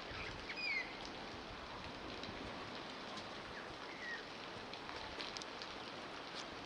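Steady outdoor hiss with a few short, high bird chirps, about half a second in and again around four seconds.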